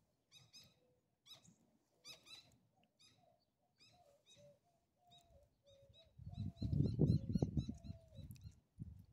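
Small birds chirping in quick, repeated short high notes, with a dove cooing in lower notes under them. About six seconds in, a louder low rumble runs for two seconds.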